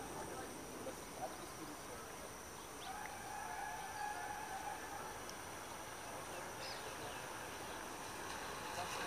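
Outdoor ambience: a steady high insect drone, a few brief faint bird chirps, and a distant mid-pitched hum that fades in and out.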